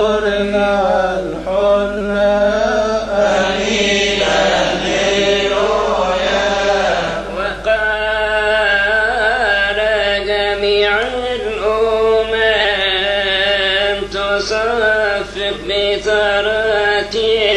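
A monk's male voice chanting a Coptic praise hymn (madih), a continuous sung line of long held notes that waver and slide in pitch.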